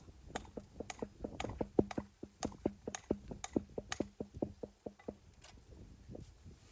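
A steady series of short, sharp taps, about two a second, growing fainter near the end.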